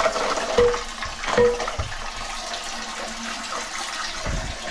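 Water running in a toilet cistern, steady and rushing, with two brief knocks about half a second apart near the start.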